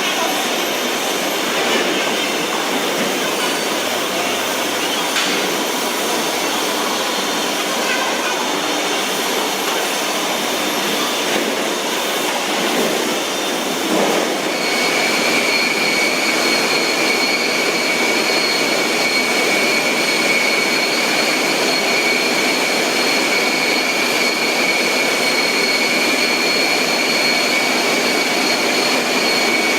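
Processing-plant machinery running with a steady, even mechanical noise; about halfway through, a steady high-pitched whine comes in and holds.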